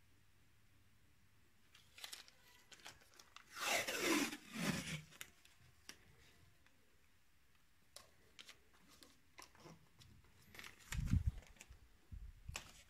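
Masking tape being pulled off the roll twice in quick succession about four seconds in, a ripping screech that falls in pitch as the pull slows. Later come light clicks and a few soft thumps as the tape is pressed onto the cylinder head.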